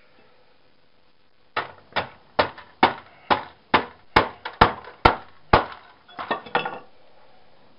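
A hammer striking scrap TV parts about ten times at a steady pace of a little over two blows a second, followed by a brief rattle of smaller knocks.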